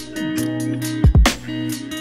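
Background music with a steady beat: deep drum hits about once a second over held instrumental notes.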